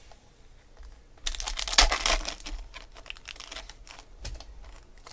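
Foil wrapper of a Panini Select football card pack crinkling and tearing as it is opened by hand. It starts sharply a little over a second in with the loudest burst, then goes on as lighter, irregular crinkles.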